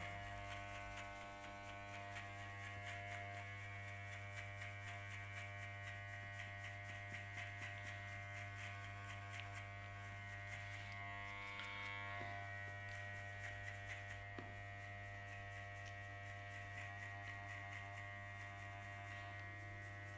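Wahl Magic Clip cordless hair clipper running with a steady electric buzz as it cuts short hair on the side of the head in a fade.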